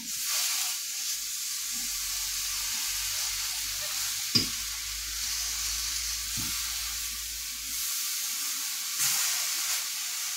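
Pineapple cubes caramelizing in sugar in a hot frying pan, sizzling steadily while the pieces are turned, with a couple of light knocks of the utensil against the pan, the sharpest about four seconds in.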